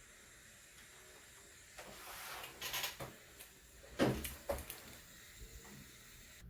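Handling noise at a workbench: a short rustle, then two sharp knocks about half a second apart and a few small ticks, as things are handled during soldering of a memory chip onto a circuit board.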